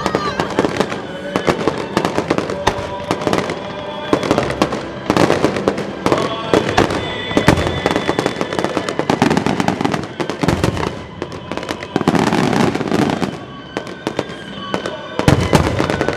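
Aerial fireworks display: a rapid run of bangs and crackling bursts throughout, with music playing underneath.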